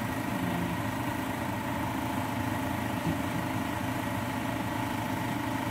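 Steady mechanical hum with an even hiss and no distinct events.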